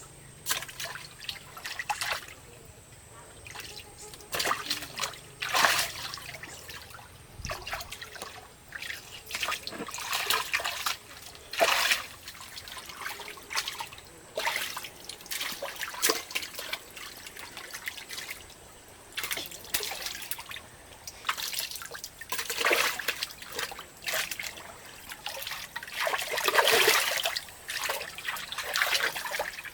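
Water splashing and trickling in irregular short bursts, like water dripping and sloshing as things are moved through it.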